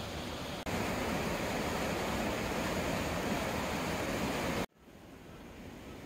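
Steady rush of a mountain valley stream, an even noise with no pitch. It dips for an instant just after the start, runs louder for about four seconds, then cuts abruptly to a quieter rush.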